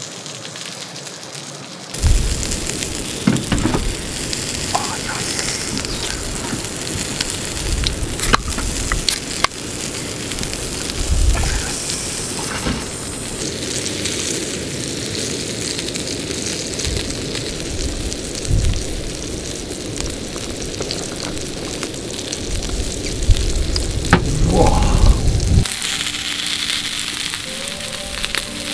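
Yakitori skewers sizzling on a hot iron griddle plate over a gas stove, with sharp pops and crackles of fat here and there. The sizzle comes in suddenly about two seconds in, and music starts near the end.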